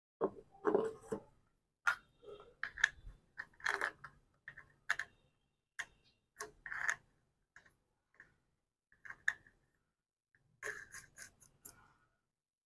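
Irregular clicks, knocks and rattles of plastic wall-fan parts being handled and fitted back together during reassembly.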